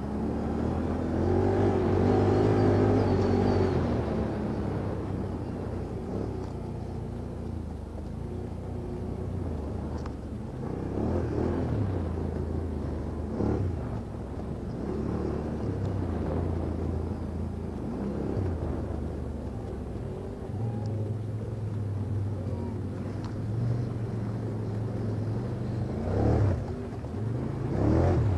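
ATV engine running under load and revving up and down, with the loudest rises near the start and again near the end.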